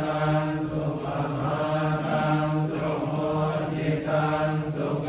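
Buddhist monks chanting in unison, holding one low, steady pitch.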